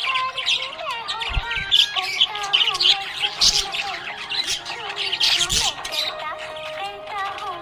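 Budgerigars chirping and warbling continuously, many quick squawks and tweets overlapping, with a low thump about every two seconds.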